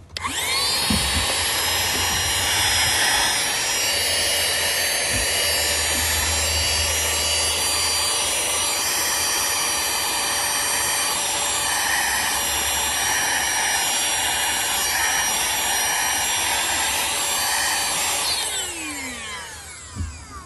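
CODN cordless handheld vacuum's small high-speed motor switched on, whining up to speed at once and running steadily. About eighteen seconds in it is switched off and its whine falls away as it spins down.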